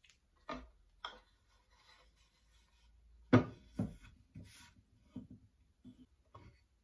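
Small mitred mahogany box being handled and set down on a wooden workbench: a series of light wooden knocks and rubs, the loudest about three seconds in as the box lands on the bench.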